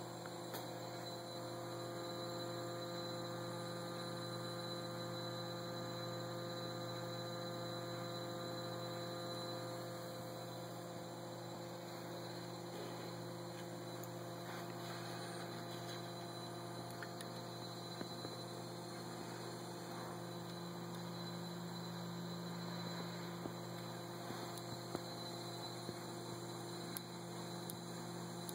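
Bedini SSG pulse charger running, giving a steady electrical hum of several tones while it charges a Li-Ion laptop battery. A few faint clicks sound near the end.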